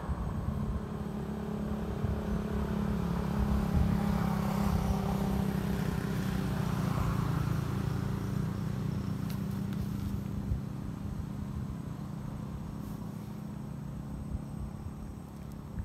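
Engine hum of a motor vehicle going by, swelling about four seconds in and then slowly fading away.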